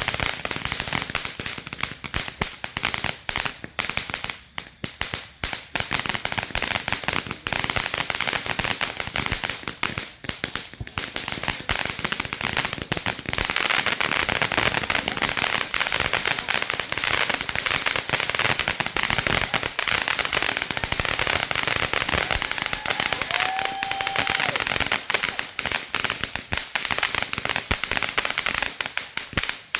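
Fireworks going off as a rapid, unbroken run of small cracks and pops, like a long string of firecrackers, which stops just before the end.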